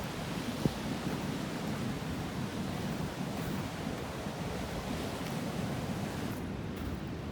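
Steady rush of sea waves and wind on the shore, with one short click about a second in.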